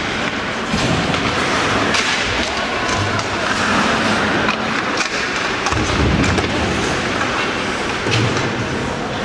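Ice hockey game sound in an arena: skates scraping on the ice, several sharp clacks of sticks and puck, and spectators' voices in the background.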